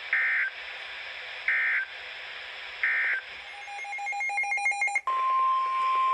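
Emergency Alert System SAME header: three short identical bursts of warbling data tones about a second and a half apart. Then a second or so of rapid stuttering beeps, and from about five seconds in the steady single-pitch NOAA Weather Radio 1050 Hz warning alarm tone. Together they signal the start of a new warning broadcast.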